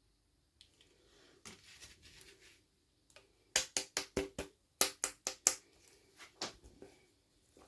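Hands unboxing small toys: a soft rustle of packaging, then a quick run of about eight sharp clicks and taps, followed by a few fainter ones.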